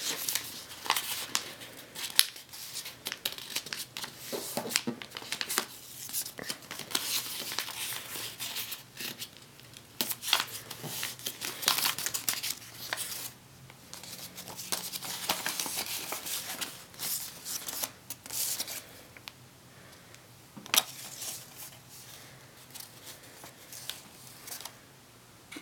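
A sheet of paper being folded and creased by hand: irregular rustles and sharp crackles of the paper, thinning out towards the end.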